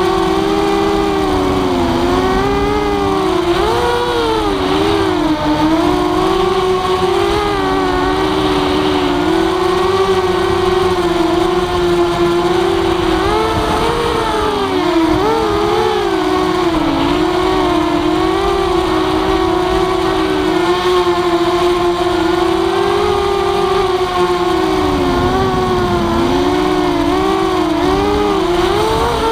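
Walkera F210 racing quadcopter's motors and propellers whining in flight, the pitch rising and dipping constantly with throttle changes.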